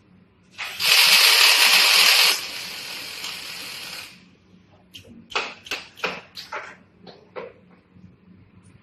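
Automatic scaffolding-crossbar welding machine at work: a loud hiss that starts about half a second in, drops to a quieter hiss and stops about four seconds in, then a quick run of about eight sharp metallic knocks.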